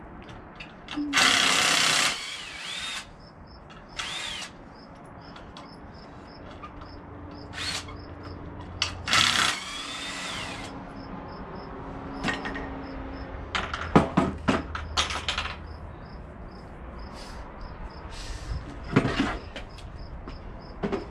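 Power drill driving screws into wooden boards in several short bursts, some starting with a rising whine, with knocks and clicks of the boards being handled in between.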